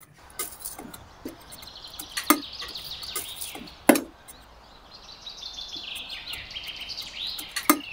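Small hand hoe chopping into dry, crusted soil: a handful of sharp strikes, the loudest about four seconds in and just before the end. Small birds chirp in quick repeated notes throughout.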